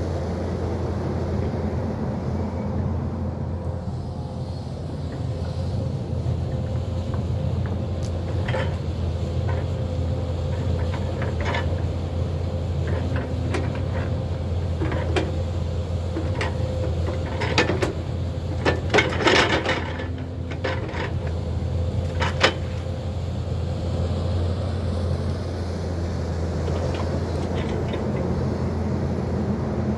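Hyundai crawler excavator's diesel engine running steadily, with scattered sharp cracks and knocks as brush and stumps are torn out, thickest a little past halfway.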